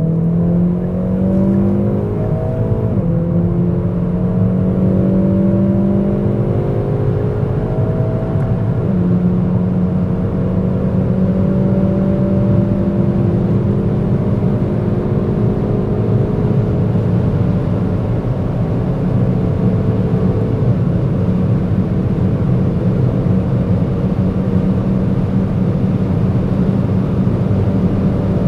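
Hyundai i30 N's turbocharged 2.0-litre four-cylinder engine pulling hard at high speed. Its revs climb with a couple of breaks in the first ten seconds, then rise slowly and hold nearly steady as the car nears top speed.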